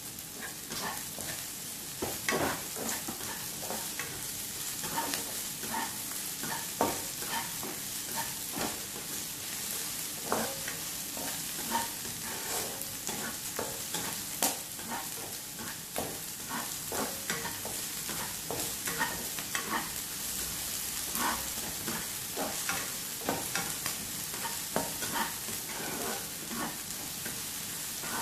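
Sliced shallots, garlic, chilli and spring onion sizzling steadily in hot oil in a stone-coated wok while a nylon spatula stirs them, with frequent short scrapes and taps of the spatula against the pan. The aromatics are being sautéed until fragrant.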